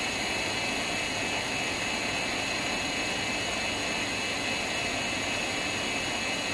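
Steady, even background hiss with faint high steady tones running through it and no distinct sound events.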